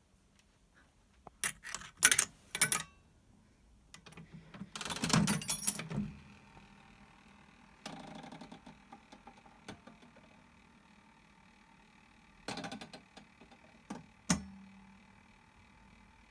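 Vintage Manhattan one-armed bandit slot machine mechanism working: a few sharp clicks and clunks, a rattling whir about five seconds in, a run of quick ticks around eight seconds, then more clunks near the end, the last one ringing briefly.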